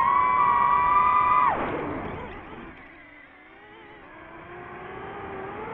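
DJI FPV drone's motors and propellers whining at high speed. About a second and a half in, the whine falls steeply in pitch and goes much quieter as the motors spin down, then rises slowly again in pitch and level through the second half.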